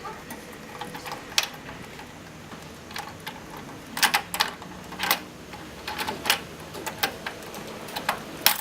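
Irregular clicks and taps of PC hardware being handled while the CPU cooler is removed, with the loudest clacks about halfway through and near the end.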